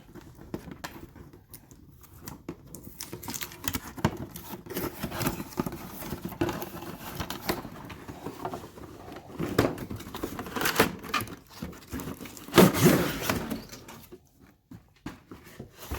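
A cardboard box being opened by hand: the taped seam worked open and the flaps and packaging handled, giving irregular scraping, rustling and light knocks, with a louder burst of rustling about two thirds of the way through.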